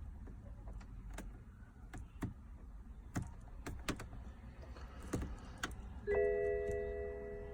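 Scattered small clicks and knocks of hands and clay working at the car's start/stop button in the dash. About six seconds in, an electronic chime of several steady tones rings out in the car and slowly fades.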